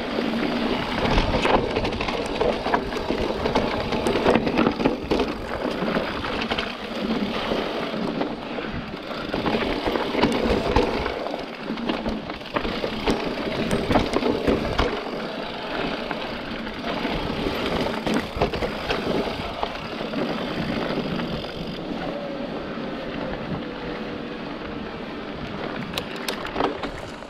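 Santa Cruz Heckler e-mountain bike riding a dirt trail: tyres rolling and crunching over dirt, roots and gravel, with frequent rattles and knocks from the bike over bumps.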